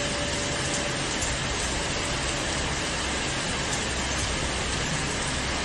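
Heavy rain and rushing floodwater: a steady, even noise that does not let up.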